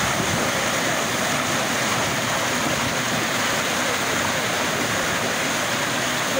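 Pumped water discharging from an outlet into a concrete channel: a steady rush of churning, turbulent water.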